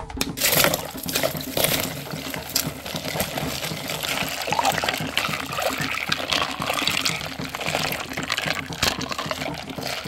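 Crushed ice being pushed into a plastic pitcher of lemonade and stirred in with a spatula: liquid sloshing and swirling, with small clicks of ice throughout.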